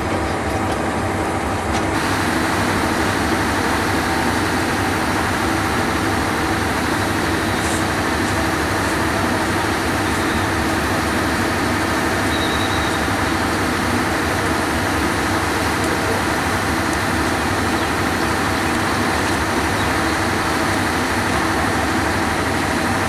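Steady running noise of a Bangladesh Railway InterCity passenger train moving along the tracks, a continuous rumble with an engine-like drone. The sound changes character about two seconds in, where the picture cuts.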